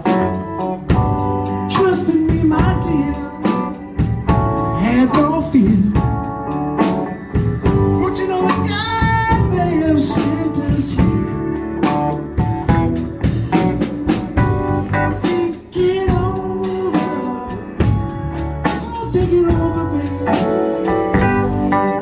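A band playing a slow blues-soul song: a voice singing over guitar, with regular drum-like hits.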